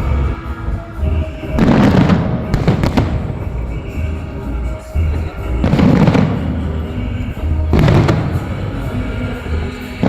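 Holiday fireworks salute: shells bursting with heavy booms about every two to four seconds over steady music.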